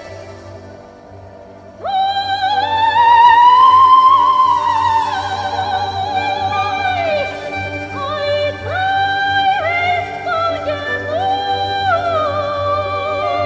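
A female singer enters about two seconds in on a long, high held note with vibrato that swells and then sinks into a phrase of stepped held notes, over a quiet accompaniment.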